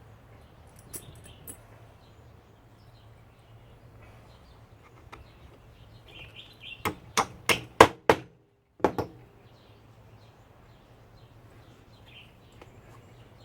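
Hammer striking a nail into wood: a quick run of sharp blows about seven seconds in, then one more a second later, with a few faint knocks before.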